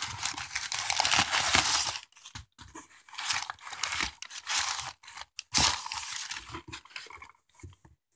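Crumpled packing paper rustling and crinkling as hands dig a box out of a cardboard shipping carton. The rustling is continuous and loudest in the first two seconds, then comes in shorter bursts with brief pauses.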